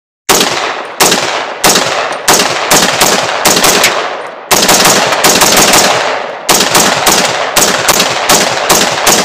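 AR-15 in .300 Blackout firing semi-automatic, loaded with handloads built on .30 Carbine bullets. About twenty loud shots in quick succession, roughly two to three a second, each ringing out before the next.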